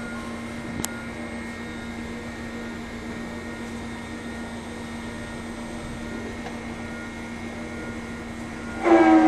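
CNC router running with a steady hum and one short click about a second in. Near the end a loud, steady, many-toned howl starts as the router cuts into styrofoam.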